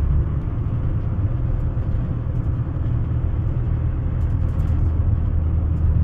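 A car driving at road speed, heard from inside the cabin: a steady low rumble of road and engine noise.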